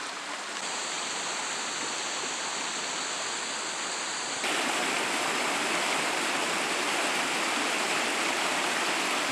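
Rocky creek water rushing and splashing over stones, a steady rush that jumps louder and fuller about four and a half seconds in, where the water tumbles down a small cascade.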